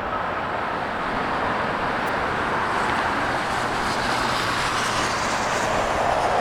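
Jet airliner engine noise, an even rushing sound that grows steadily louder as the aircraft approaches.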